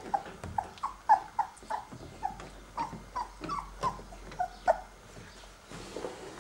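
Basset Artésien Normand puppies, 19 days old, whimpering and squeaking in a quick run of short high-pitched calls, two to four a second, which thin out about five seconds in.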